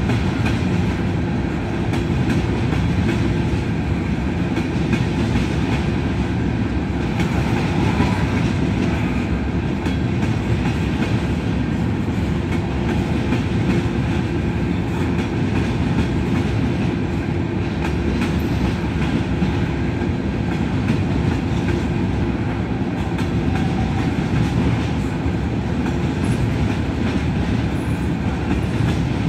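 Covered hopper cars of a grain train rolling past: a steady rumble of steel wheels on rail with a light clickety-clack of wheels over the joints.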